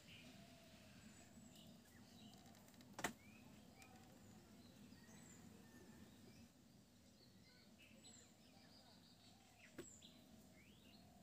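Near silence with faint bird chirps. A sharp click about three seconds in and a softer one near the end.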